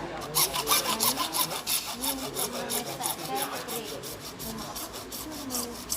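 Handsaw cutting a PVC pipe clamped in a bench vise, with quick back-and-forth strokes at about four to five a second that grow weaker near the end.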